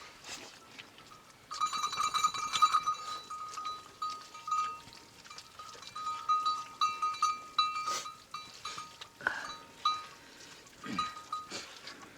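Metal livestock bells on the flock clinking and ringing on and off as the animals move. The clinking begins about a second and a half in and is densest early on.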